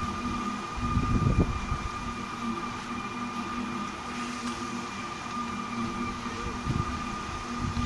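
Round Up amusement ride running: its tilted, spinning wheel's drive machinery gives a steady mechanical hum with a high, constant whine. A louder low rumble comes about a second in.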